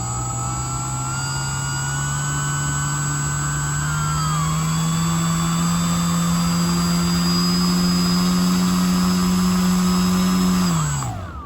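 Small brushless electric motor spinning a propeller in a bench test run for vibration, a steady buzzing whine. Its pitch climbs slowly as the throttle is eased up, then drops away as it spools down near the end.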